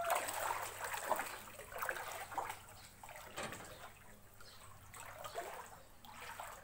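Feet wading through shin-deep floodwater, sloshing and splashing irregularly with each step. The splashing is louder in the first couple of seconds.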